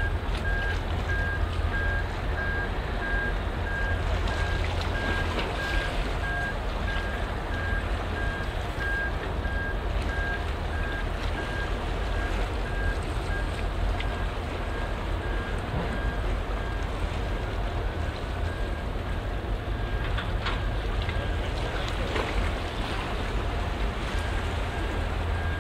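Steady outdoor wind-and-water noise with a low rumble, as a ferry approaches across open water. A faint high tone pulses evenly on and off through it.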